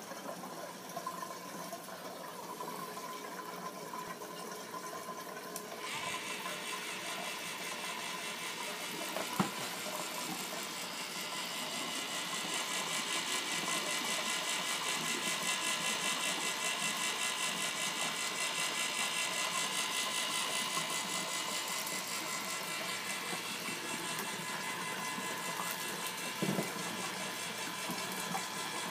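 Homemade auger fish feeder running: a rotisserie motor turns an auger drill bit inside a PVC pipe with a steady mechanical whir, which gets louder and brighter with a fine fast rhythm about six seconds in. A single click comes near ten seconds and a short knock near the end.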